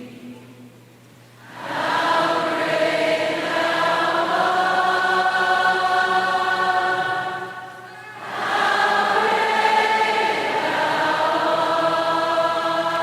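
Choir singing a hymn in long, held notes: two phrases, each starting after a short quiet breath, one about a second and a half in and one about eight seconds in.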